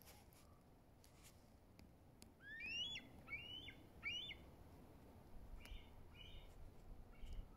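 Bald eagle calling: a series of about six high, upward-sweeping whistled notes, the first three loudest and the rest fainter.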